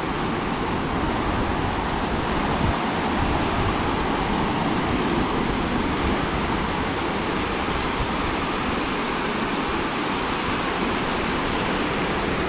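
Steady rush of small surf waves washing on the beach, with wind rumbling on the microphone.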